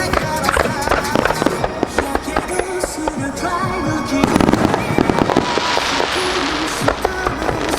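Aerial fireworks bursting and crackling over music played through the show's loudspeakers. About four seconds in comes a heavier cluster of bursts, followed by a fizzing hiss high up.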